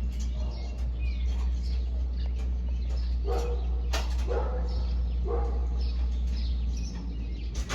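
Birds chirping over a steady low rumble, with three short pitched calls about a second apart in the middle.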